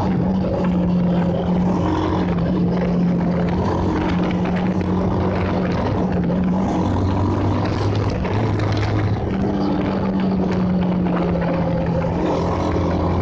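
Bajaj Pulsar's single-cylinder engine running steadily under way, its pitch shifting slightly every few seconds, with a constant rush of wind and road noise heard from the rider's seat.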